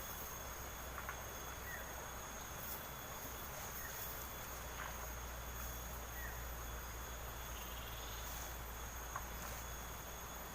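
Insects, crickets or similar, chirring steadily in high unbroken tones, with a few faint clicks.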